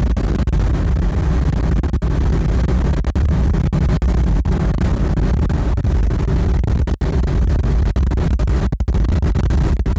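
Loud, steady road and engine noise inside a Fiat Coupé's cabin at motorway cruising speed, mostly a deep rumble. A few very brief cut-outs break it.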